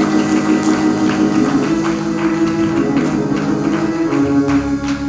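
Church praise music: sustained keyboard chords that change every couple of seconds, with light rhythmic percussion hits like a tambourine.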